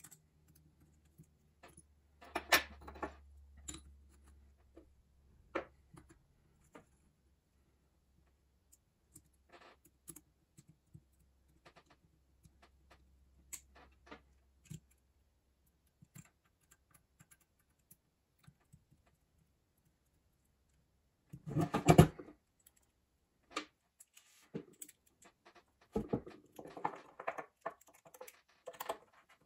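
Hands handling a Ruger Mark IV SSH pistol and its small aluminium optic-mount parts while swapping the top mount: scattered small clicks, taps and scrapes of metal, with a louder clatter about two-thirds through and busier handling near the end.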